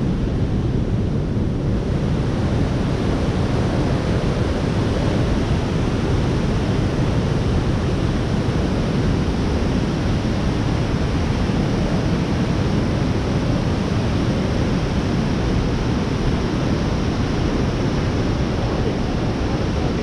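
Linville Falls' whitewater cascades rushing steadily through the rock gorge: a loud, deep, unbroken rush of falling water.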